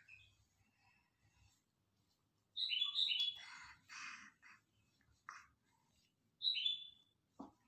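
A bird chirping: a pair of short, high chirps about two and a half seconds in and another near the end, with some rougher calls between them.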